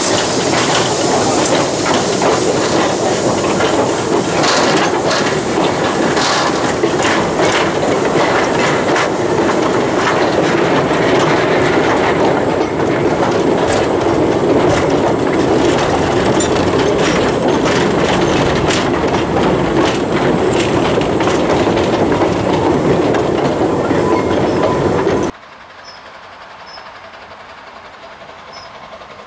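Narrow-gauge slate and goods wagons rolling past close by: a loud, dense rattle and clatter of wheels and loose iron wagon bodies, with frequent clicks and clanks over the rail joints. It cuts off abruptly near the end, leaving a far quieter background.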